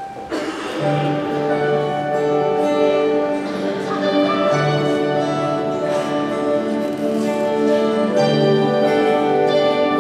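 Live gospel music starting suddenly: keyboard and acoustic guitar play held chords over a low bass note that changes every second or two.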